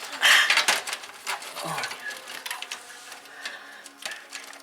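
Metal computer case parts rattling and clattering as they are handled, loudest in the first second, then lighter clicks and scraping.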